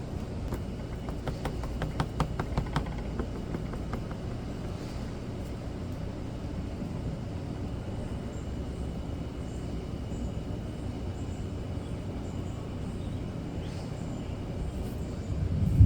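Steady rainfall with a low rumble under it, and a quick run of sharp taps and drips about a second to three seconds in. A low thump comes right at the end.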